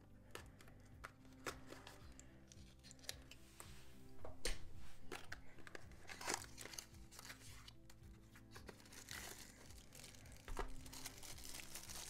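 A cardboard package being slit and torn open, with scattered clicks and tearing bursts, then a plastic bag crinkling near the end as it is handled. Soft background music plays under it.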